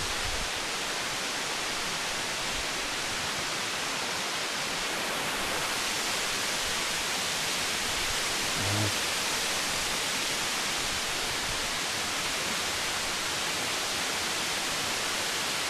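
Waterfall rushing with a steady, even roar. A brief low hum stands out about nine seconds in.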